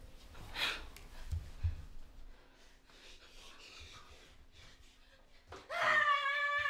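A sharp breathy gasp, two dull thumps, then near the end a person breaks into a loud, high, sustained scream.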